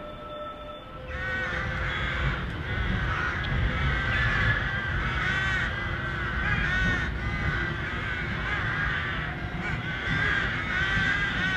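Several crows cawing over one another, call after call, over a low, steady rumble.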